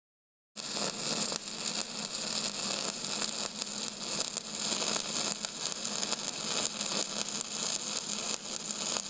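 Steady crackling hiss, dense with fine crackles, over a low steady hum, cutting in abruptly about half a second in.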